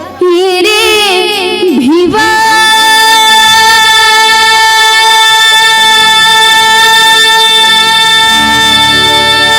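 A high singing voice in a Bhim geet sings quick, wavering ornamented phrases for about two seconds, then holds one long steady note for about seven seconds over a low musical accompaniment.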